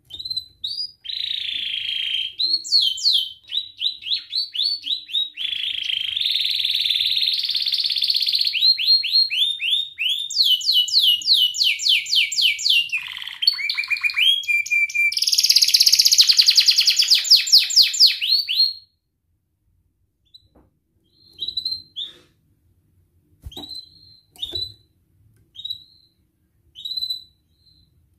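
Domestic canary singing a long, unbroken song of fast trills and rolling phrases for about eighteen seconds. It then stops, and a few short single chirps follow near the end.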